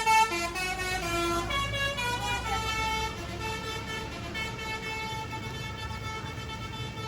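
Tour bus's basuri telolet horn playing a long multi-note tune, its notes stepping from pitch to pitch, over a low engine rumble. It grows quieter after about three seconds.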